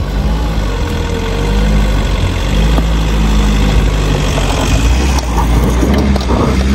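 Force Gurkha SUV's diesel engine running at low revs close by, deep and steady. A broader hiss joins over the last couple of seconds.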